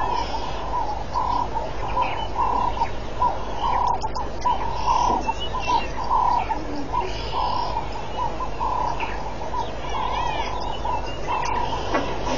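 A run of short chirping animal calls, repeated a few times a second, with fainter higher chirps over them.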